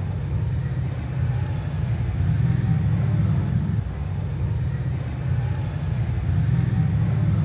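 Steady low rumble of a road vehicle in motion, swelling a little about two seconds in and again near the end.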